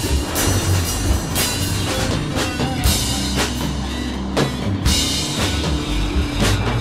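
Music with a drum kit playing a beat.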